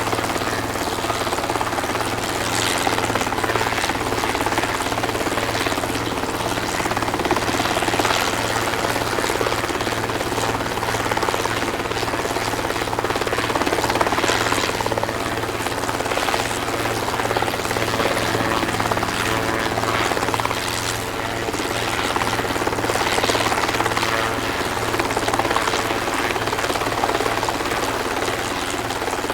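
Helicopter hovering: a steady low engine and rotor drone under rough rotor wash that swells and eases every few seconds.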